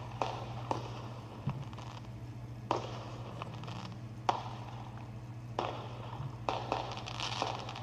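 Firework crackling, with scattered sharp pops over a steady low hum.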